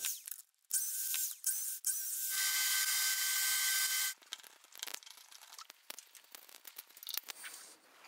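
Table saw running and cutting through a hardwood block, a steady hiss with a faint motor whine, broken briefly twice. About four seconds in it gives way to a chisel paring shavings off hardwood: irregular scrapes and small clicks.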